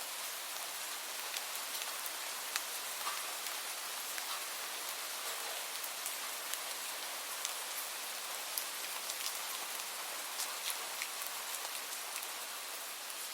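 Light rain falling steadily, a constant hiss with many individual drops ticking sharply on a nearby surface at irregular moments.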